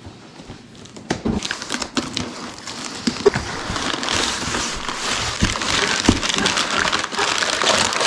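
Packing material crinkling and rustling as a parts box is unpacked, with scattered knocks. The crinkling grows denser and louder after the first second or two.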